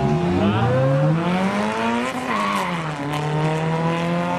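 Drag race car engine at full throttle. Its pitch climbs for about two seconds, drops over the next second, then holds and slowly climbs again.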